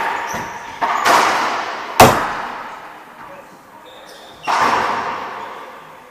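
Racquetball rally in an enclosed court: the ball is struck and hits the walls in about four sharp pops, each ringing out in a long echo, the sharpest about two seconds in.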